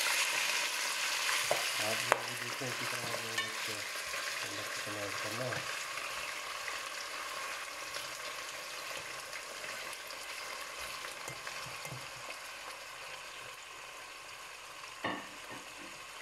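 Diced boneless chicken breast sizzling in hot oil in a stainless steel pot as it is stirred with a metal slotted spoon. The sizzle is loudest as the chicken goes in and fades steadily, with a sharp knock about two seconds in and another near the end.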